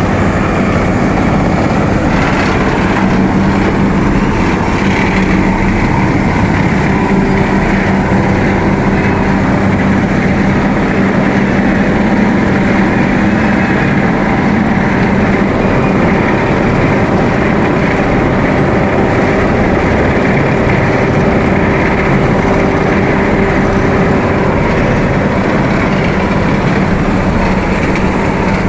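Asphalt paver running steadily: a loud, even machine noise with a constant low hum.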